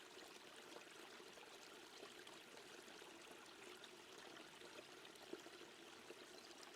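Near silence with a faint, steady background of running water.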